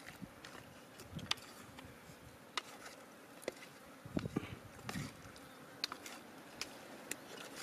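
Insects buzzing, with scattered sharp clicks and knocks of a wooden stick against a metal cooking pot as boiled meat is stirred.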